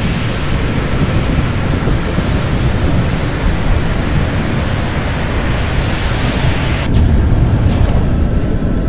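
Thunderstorm sound effect over a rough sea: a loud, steady rush of rain and storm noise, with a sharp crack of thunder about seven seconds in followed by a low rumble.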